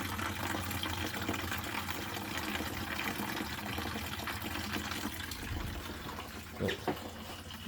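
Antifreeze draining out of a pickup truck's radiator in a steady running gush of liquid, with the cap opened on a line so it runs out faster.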